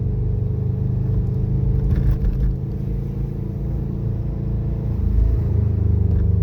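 Subaru Legacy driving, its engine running steadily under road noise, with a slight change in engine note about five seconds in.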